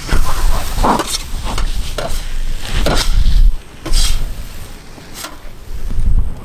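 Food sizzling in a giant paella pan while it is stirred and scraped with a spatula, in irregular strokes about once a second.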